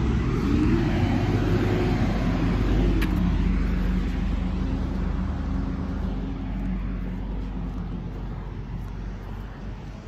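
A motor vehicle passing on the road, its engine and tyre noise dropping slightly in pitch and fading away over the second half.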